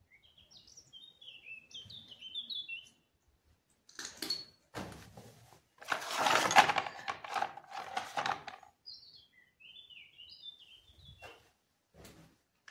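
Small birds chirping in quick bursts for the first three seconds and again from about nine seconds in. Between them, crunching knocks on rubble and a louder rustle lasting a couple of seconds, as a paper form is picked up from the debris.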